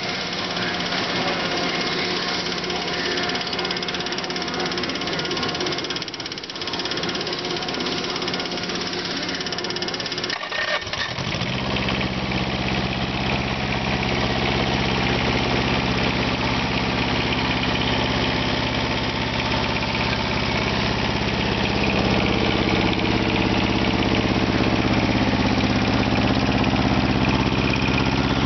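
Ingersoll-Rand TK270M small two-cylinder diesel engine running. About eleven seconds in, the sound changes to a steadier, stronger low hum that grows slowly louder.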